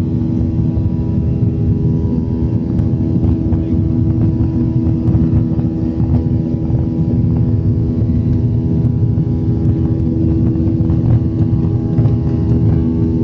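Airliner engines running steadily during take-off and climb: a loud, even low rumble with a steady hum.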